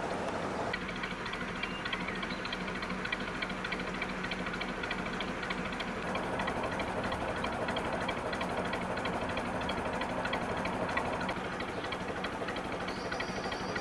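Narrowboat's diesel engine running steadily while cruising, a constant low hum with a fast, even clatter over it.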